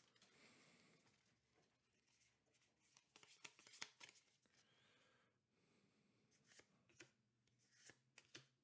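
Near silence, with faint clicks and slides of trading cards being flipped through by hand: a cluster about three to four seconds in and a few more near the end.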